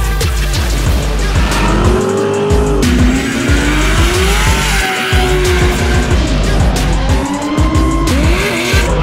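Race car engines revving and tyres squealing, mixed under music with a heavy beat.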